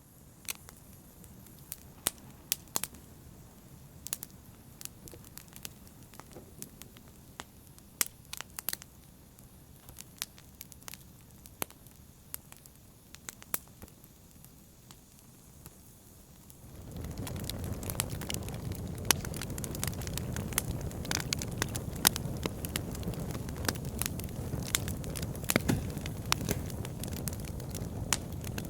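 Wood fire burning in a fireplace, crackling with scattered sharp pops. About two-thirds of the way through, a low rushing noise of the fire comes in suddenly and stays louder.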